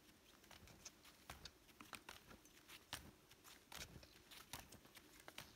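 Faint, irregular crunching of snowshoe steps and trekking-pole plants in deep snow, a few soft crunches a second.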